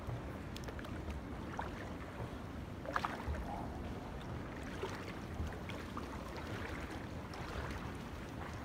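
Pool water sloshing and splashing as a person steps down into a small pool and wades through it, over a steady low rumble. A sharper splash or knock about three seconds in.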